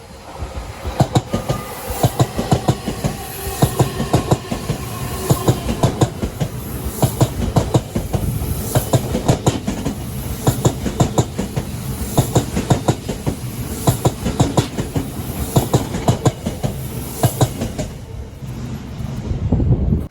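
Odakyu Line electric train passing close by, its wheels clacking over rail joints in quick repeated groups over a steady rumble. The sound cuts off suddenly near the end.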